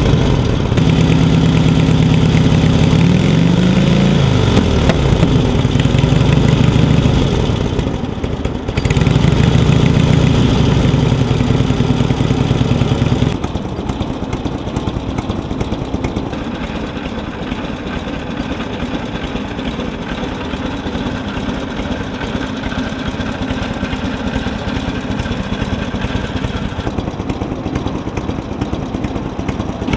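A 1948 Indian Chief's side-valve V-twin engine, freshly revived after 40 years laid up, running. It is revved up and down in the first half, then settles to a steady, quieter idle a little under halfway through.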